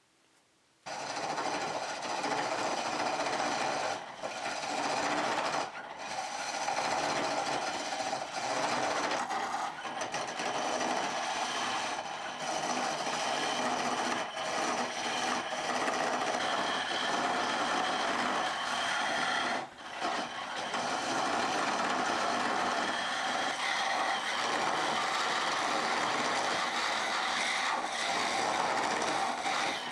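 Turning tool cutting the spinning wood of a chisel handle on a treadle lathe: a steady cutting noise that starts about a second in, with a few short breaks as the cut is lifted.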